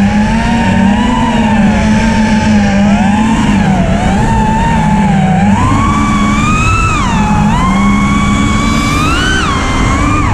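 Brushless motors and propellers of a 5-inch FPV quadcopter whining, the pitch sliding up and down with the throttle as it chases and banks. The pitch climbs about halfway through and drops sharply twice in the second half.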